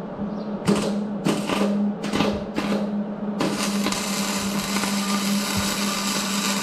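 Flux-core wire-feed welder striking its arc in four short bursts, then welding steadily from about three and a half seconds in with a continuous crackling hiss, over a steady low hum. It is welding a nut onto a broken 3/8 bolt stub, run hot with the wire speed turned down so it burns in.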